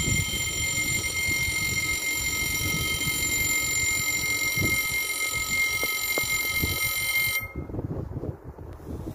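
French level-crossing warning bell ringing with a steady electronic tone while the barriers lower. It cuts off suddenly about seven seconds in, as the barriers come down fully. A low rumble runs underneath.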